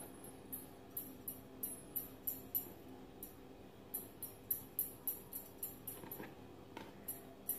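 Bangles on the wrists jingling in short, quick clinks, about three a second, as the hands roll dough back and forth on a wooden board.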